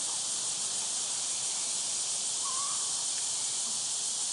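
Steady high-pitched chorus of insects, with one short faint warbling call about two and a half seconds in.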